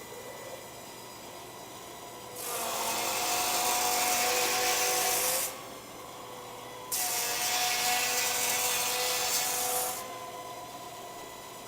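CNC channel-letter bending machine working in two runs of about three seconds each: a harsh, grinding hiss with a steady whine, set against a low machine hum.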